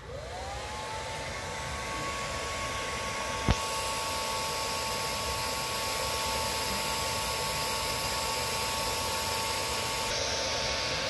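Handheld hair dryer switching on: its motor spins up with a rising whine that settles into a steady tone over the rush of air. About three and a half seconds in there is a click, after which the airflow hiss gets louder and runs on steadily.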